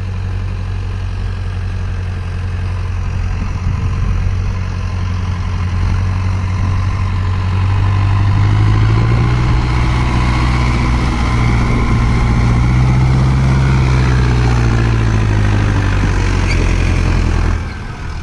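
A Mahindra tractor's diesel engine running under load as it hauls a trolley through flooded mud, with water splashing around the wheels. The engine note rises about eight seconds in, holds, and eases off near the end.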